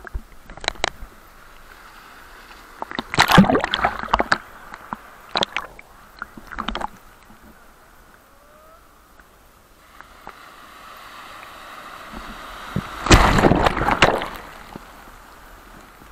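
Big sea waves breaking on the shore: a crash about three seconds in with smaller splashes after it, then a rush of surf building up to a bigger crash near the end.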